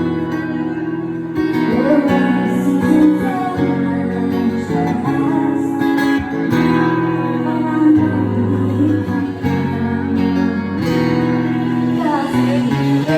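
Acoustic guitar strummed with a woman singing over it: a live unplugged song.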